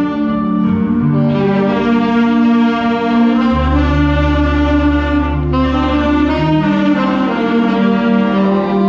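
Saxophone ensemble playing a slow passage of held chords that change every second or two, with a low bass note coming in about a third of the way through.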